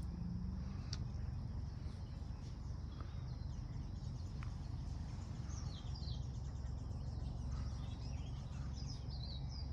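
Birds chirping in short falling notes every few seconds, over a steady low rumble.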